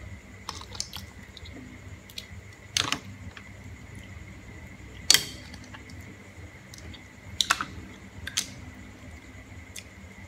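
Boiled green mussel shells clicking and clacking as they are pried apart by hand and tossed aside: four sharper clacks among lighter ticks, over a faint steady hum.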